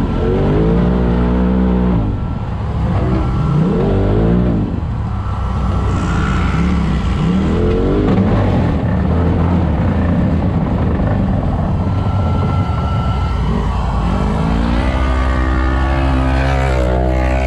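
Off-road race vehicle's engine under hard throttle, revving up and dropping back several times, with a long climb in revs near the end. A thin, steady high whine comes and goes over it.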